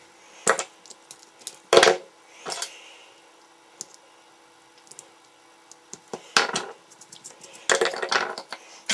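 Fingers handling a small stripboard and pushing a transistor's wire leads through its holes: several short clicks and scrapes, the loudest about two seconds in, with a busier cluster near the end.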